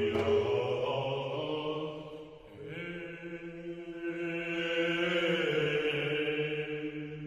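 Slow, chant-like singing in long held notes. The sound dips about two seconds in, a new held note starts about half a second later, and the pitch shifts once past the middle.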